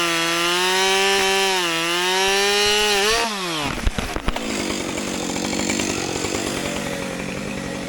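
Two-stroke chainsaw at full throttle cutting wood, its pitch dipping and recovering under load. About three seconds in, the throttle is released and the engine note drops away sharply. A couple of sharp knocks follow, then a fainter chainsaw engine keeps running steadily.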